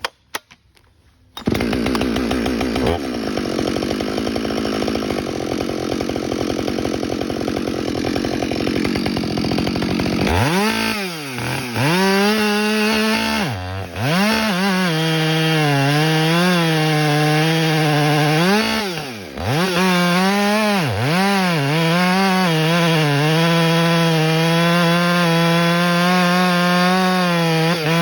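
Ported Husqvarna 572 XP two-stroke chainsaw, its AutoTune freshly reset, starting up about a second in and running at lower speed. From about ten seconds in it revs up and down several times, then holds at high speed with brief dips in pitch, as when cutting under load.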